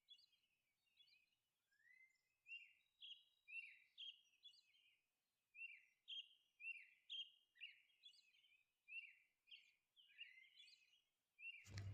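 Faint bird chirps: short, falling chirps repeating in small clusters.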